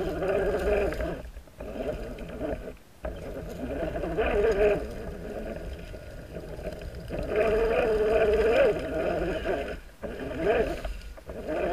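RC rock crawler's electric motor and gear train whining as it crawls over pine needles and leaf litter, in several throttle bursts with short pauses, the pitch wavering up and down with throttle and load.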